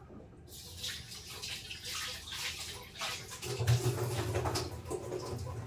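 Water running from a kitchen tap into a steel sink. It starts about half a second in and grows fuller and louder about three and a half seconds in.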